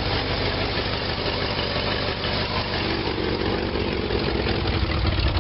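Cold Oldsmobile 403 V8 idling steadily through an unfinished dual exhaust. The owner takes it to be running a little lean, low on fuel and perhaps fed by a weak fuel pump.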